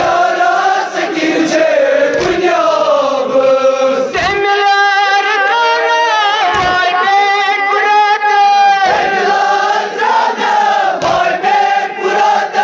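Voices chanting a Kashmiri noha, a Muharram mourning lament, in a long wavering melody. A dull low thud falls about every two seconds in time with the chant.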